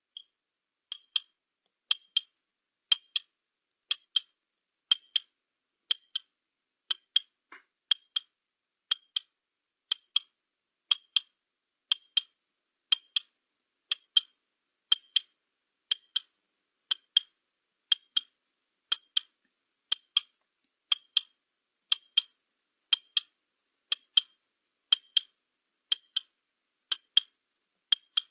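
Countdown timer sound effect: a clock ticking evenly, about one tick a second, while the 30-second answer time runs down.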